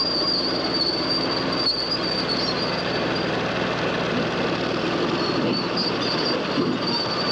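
Caterpillar crawler loader at work: its diesel engine is running and its steel tracks clank and squeal, a dense steady mechanical clatter with a high steady squeal over it, heard through old 8mm sound-film audio.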